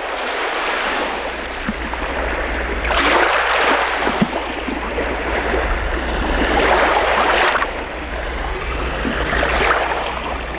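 Rushing, surf-like noise that swells and fades three times over a low, steady hum.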